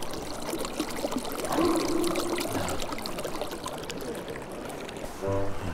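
Shallow river running and trickling over stones, with small splashes. Music starts near the end.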